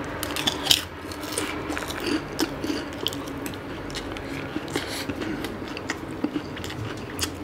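Close-up chewing of a mouthful of fried rice, with a metal spoon scraping and clicking against a paper takeaway box in small irregular strokes. The sharpest click comes just under a second in.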